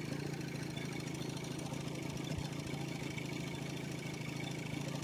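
Small boat's outboard motor idling steadily.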